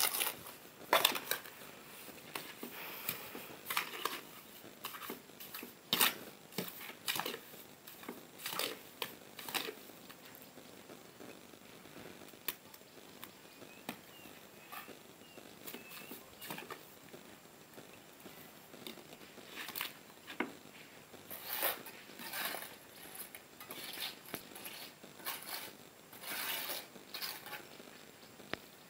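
Irregular scrapes and clicks of a trowel working cement mortar against a wall, with small stone strip tiles knocking as they are pressed into place.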